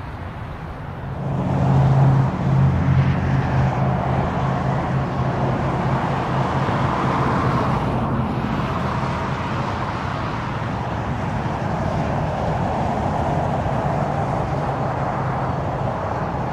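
Propeller aircraft engine drone that comes in abruptly about a second in, then holds steady: a low hum under a broad rushing noise.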